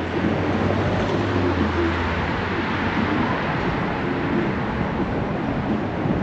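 Road and wind noise from a vehicle driving through city traffic, picked up by a camera mounted on the vehicle: a steady rushing noise, with a low hum that fades out about two seconds in.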